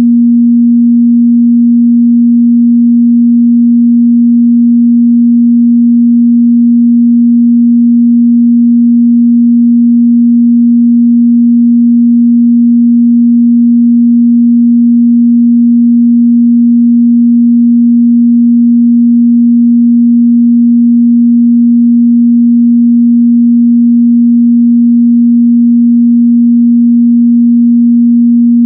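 A steady, loud 237 Hz sine-wave test tone, one unchanging mid-bass pitch with no other sound.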